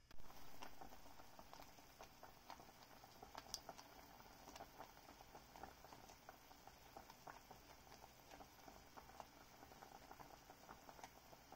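A braising liquid of soy sauce, vinegar and water simmering faintly in a pot around a whole chicken: an irregular patter of small bubbles popping.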